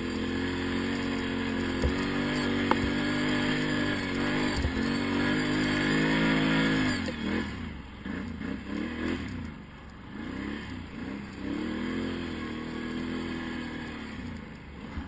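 Quad bike (ATV) engine running, holding a fairly even note for about seven seconds, then rising and falling repeatedly as the throttle is worked on and off. A few sharp knocks come in the first five seconds.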